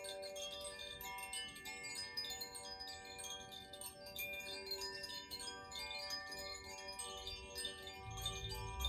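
Tuned wind chimes, Koshi and Zaphir chimes, ringing together: many sustained tones overlapping, with constant light tinkling of the chime rods. A low rumble comes in near the end.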